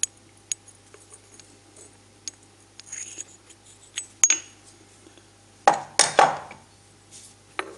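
Steel gate hinge knocking and clinking against the steel press bed and a round steel bar as it is handled into position: scattered light clinks, one ringing metallic ping a little past four seconds in, and a louder metal clatter about six seconds in.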